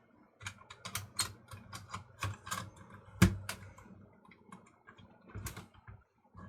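Quick, irregular clicks and taps of small plastic parts being handled: an 8mm videocassette being fitted into the open cassette compartment of a Sony CCD-TRV16 camcorder. The clicks come thickly at first, the sharpest about three seconds in, then a few more near the end.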